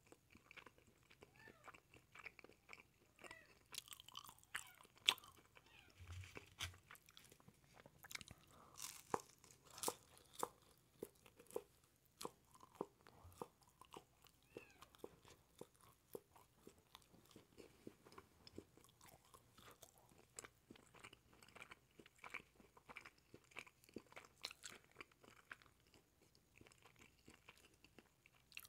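Close-miked biting and chewing of a quesadilla: a steady run of small crisp crunches and wet mouth clicks, loudest in the first third.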